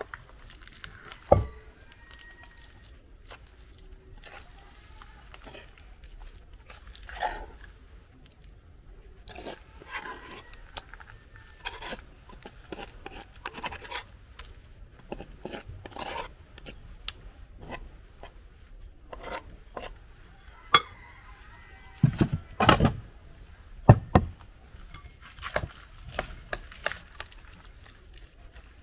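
Food-preparation handling sounds: a utensil scraping mashed plantain out of a wooden mortar and stirring it in a glass bowl, with many small clicks and scrapes. A few loud knocks stand out, one about a second in and a cluster about twenty-two seconds in.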